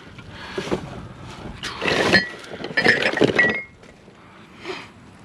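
Metal kitchenware such as pans being rummaged through and shifted, clinking and rattling in two bursts about two and three seconds in, with a fainter knock near the end.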